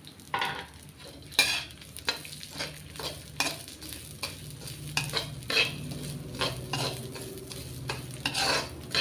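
Poppy seeds frying in ghee in a kadhai, stirred with a ladle: irregular scraping strokes over a faint sizzle.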